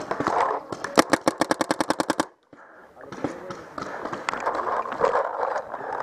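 Paintball marker firing a rapid string of about fifteen shots, roughly a dozen a second, that cuts off suddenly; scuffing and rustling of the player's movement before and after.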